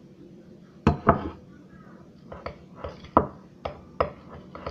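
Spoon knocking and scraping against a mixing bowl while stirring a flour, detergent and water slime mixture: two sharp knocks about a second in, then a run of lighter, irregular knocks.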